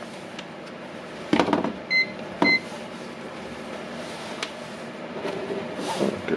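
A UNI-T digital clamp meter gives two short electronic beeps about half a second apart as it is set up to measure voltage. Around the beeps come knocks and rustle from the meter and its test leads being handled on a wooden tabletop, and the knocks are the loudest sounds.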